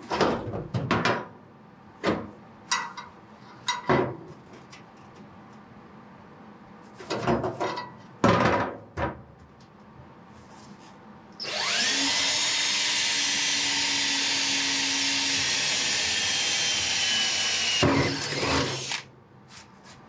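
Cordless drill boring a hole through a steel battery-tray bracket into the car's floor pan. Its motor spins up quickly and then runs steadily for about six seconds. Before it come several sharp metal clanks and knocks as the tray is handled and positioned.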